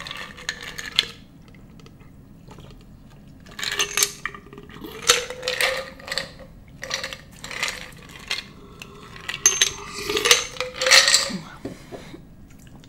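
Ice cubes clinking against the sides of a glass jar as an iced drink is drunk from it and the jar is handled, in three spells of clinking.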